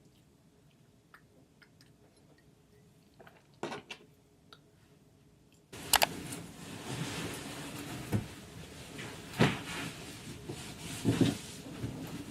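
Quiet room with a few soft clicks, then from about six seconds in a stretch of knocks and rustling as things are handled, like a cupboard or wardrobe being used while clothes are put away.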